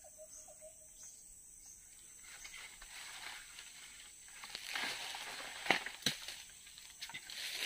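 Leafy branches rustling, starting about two seconds in, with a few sharp twig snaps in the second half as the branches are disturbed, most likely while mangoes are knocked down with a pole. In the first second a faint repeating call stops.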